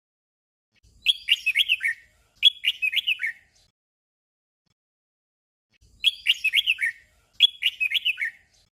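Red-whiskered bulbul singing a short 'doubled' song: a quick phrase of bright whistled notes given twice in a row. After a pause of about two and a half seconds, the pair of phrases comes again.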